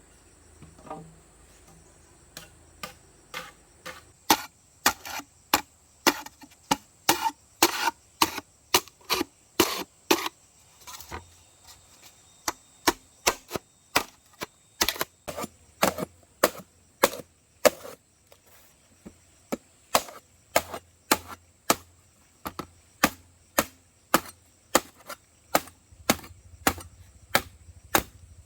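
Repeated sharp strikes of a tool on bamboo, about two to three a second, with two short pauses.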